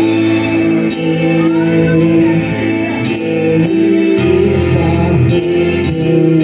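Casio electronic keyboard playing held gospel chords, the bass line shifting to a new chord about four seconds in, with a man's voice singing along. Pairs of short, high hits come about every two seconds.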